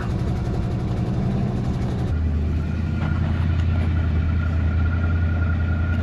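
1972 Chevy Nova engine running as the car drives. About two seconds in its note drops to a lower, steadier hum, with a faint high whine alongside.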